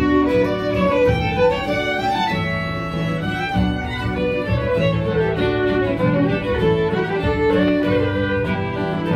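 Three fiddles playing a tune together, with bowed melody notes moving quickly over sustained lower notes.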